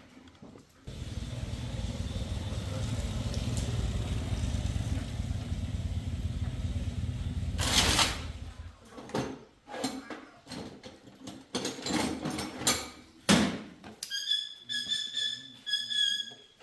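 A vehicle running with a steady low rumble for about seven seconds, then a string of sharp knocks and clatters, and near the end a run of short high chirps.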